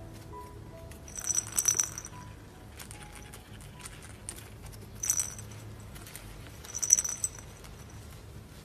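A cat toy jingling and rattling as a kitten bats and tumbles it about in a cardboard scratcher bed, in three short bursts with the loudest about seven seconds in. Faint soft background music plays underneath.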